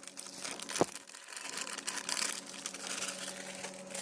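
Plastic packaging crinkling and rustling as it is handled, with one sharp click a little under a second in, over a steady low hum.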